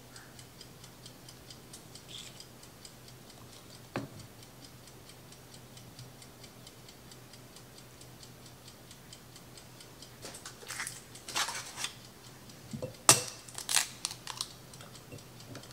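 Eggs being cracked: near the end a few sharp knocks of eggshell on the rim of a glass jar and the crackle of shell pulling apart, the loudest about 13 seconds in. Under it, a steady faint ticking, with one sharp click about 4 seconds in.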